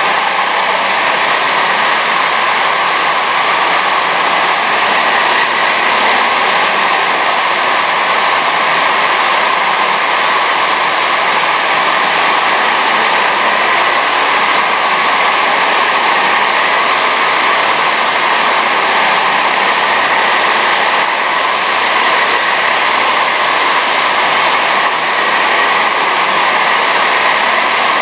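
Steady, loud din of 6.5 hp rental go-kart engines running around an indoor kart track, heard as a continuous noisy drone with no single kart standing out.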